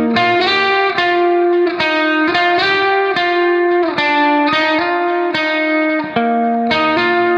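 Background music: a guitar plucking notes and chords in an even, flowing pattern, a new note struck every half second or so.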